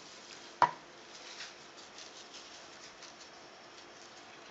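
Granulated sugar pouring from a glass onto cut cucumbers in a plastic bowl: a faint, steady hiss. A single sharp tap sounds about half a second in.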